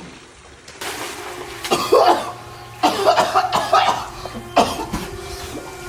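A person coughing hard in several bouts.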